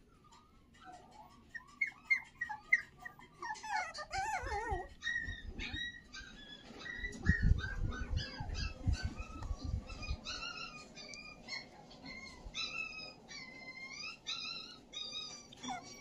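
High-pitched whimpering cries of a young animal: many short, wavering calls in quick succession. A low rumble comes in about seven seconds in.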